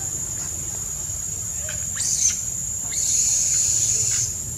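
Infant long-tailed macaque screaming in short, high-pitched, falling cries that grow louder about three seconds in, over a steady high insect drone.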